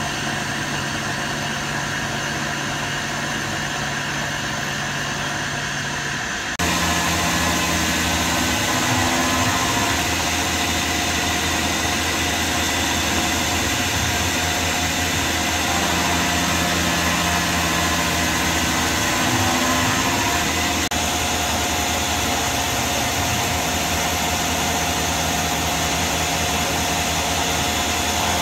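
Tormach PCNC 1100 CNC mill spindle running as a milling cutter machines an aluminium block under flood coolant: a steady machining hum and whine. About six and a half seconds in, the sound steps abruptly louder and shifts in pitch.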